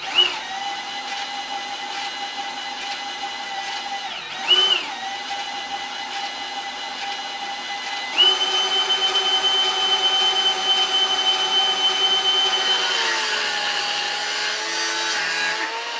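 A cordless drill spins the sanding belt of a homemade plywood belt sander by its drive shaft, with a steady whine that swoops briefly twice as the speed changes. About eight seconds in it runs louder and higher. Near the end an angle grinder cuts through a steel rod, its whine wavering under the load.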